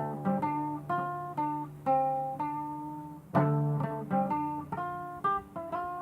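Guitar played by hand: single notes picked one after another over a ringing low bass note, with a fuller chord struck about three and a half seconds in.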